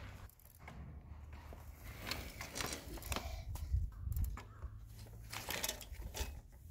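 Footsteps and a child's training-wheel bicycle moving over a grass lawn: irregular rustling and crackling over a low rumble.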